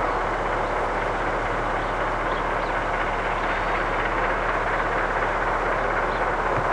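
Steam locomotive J1211 and its train running at a distance: a steady rushing noise with no clear chuff beat.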